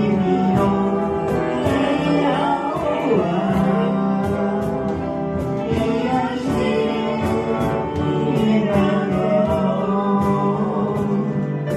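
Live music: voices singing held, sustained notes over instrumental accompaniment.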